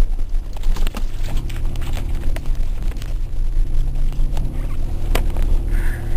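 Nissan Pathfinder SUV driving slowly over a bumpy grass field while towing a kart on a rope, heard from inside the cabin: a steady low engine and tyre rumble with scattered knocks and rattles. The engine note rises about a second in and then holds.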